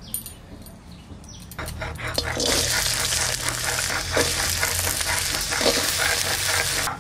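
Diced potatoes dropped into hot mustard oil in an aluminium kadai, sizzling loudly once they hit the oil a second or two in. A few knocks as pieces land in the pan.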